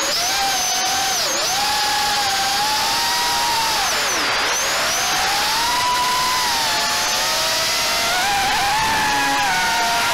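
Diatone GT R349 HD quadcopter's brushless motors and propellers whining in flight, heard from its onboard camera over a steady hiss. The whine slides down and back up in pitch as the throttle changes, with a deep dip about four seconds in.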